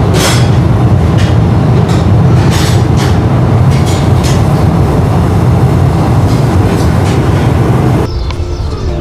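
Loud, steady roar of a glassblowing workshop's gas burners, with a few faint knocks over it; it cuts off about eight seconds in and quiet music follows.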